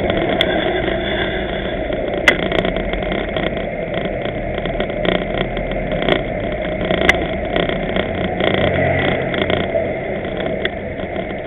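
Car engines running in slow, queued street traffic, with a low hum from an engine close by that is strongest midway. Two sharp clicks stand out, about two seconds and about seven seconds in.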